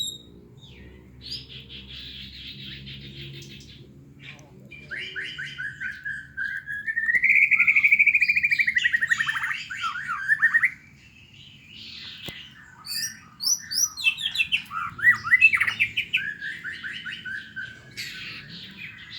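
White-rumped shama (murai batu) singing its fighting song: fast repeated trills and harsh chattering phrases, the loudest a long trill that rises and then falls about halfway through.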